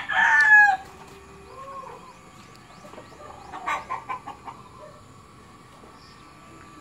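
A rooster's crow ending with a falling note in the first second, then a short run of chicken clucks about three and a half seconds in.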